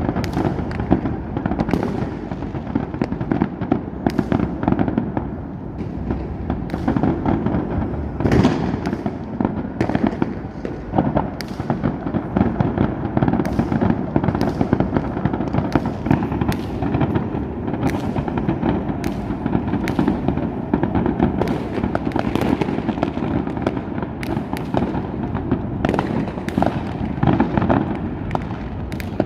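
New Year's fireworks going off continuously: a dense crackle and rumble with frequent sharp bangs, one or two a second.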